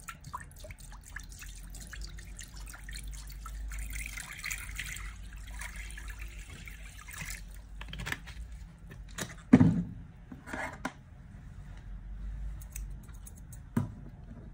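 Water pouring from a plastic bottle into a glass dish, splashing and trickling for about seven seconds. Then the plastic bottle is handled and capped, with a loud knock about halfway through and another sharp knock near the end.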